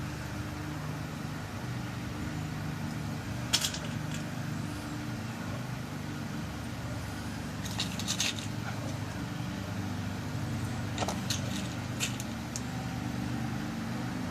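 Small sharp clicks as new lock pins are dropped into a pin-tumbler lock cylinder while it is loaded for rekeying, a few scattered clicks over a steady low hum.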